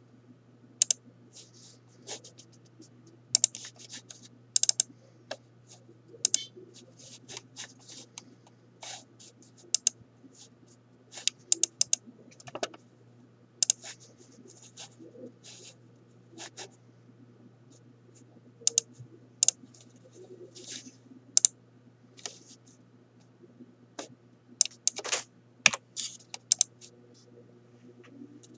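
Irregular sharp clicks of a computer mouse and keyboard, scattered with gaps, some coming in quick pairs, over a faint steady low hum.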